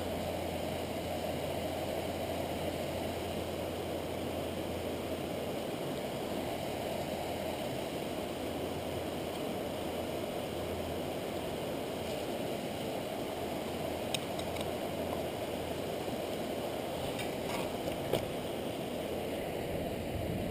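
Steady rush of the Upper Sacramento River's flowing water, with a couple of faint clicks in the last few seconds.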